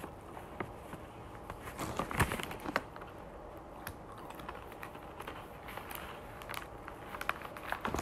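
Crinkling of a paper snack packet and soft chewing as pieces of beef jerky are pulled out and eaten, a scatter of small crackles and clicks.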